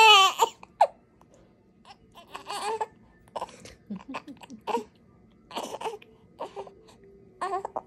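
Newborn baby crying and fussing: a loud, high cry at the start, then shorter cries every couple of seconds.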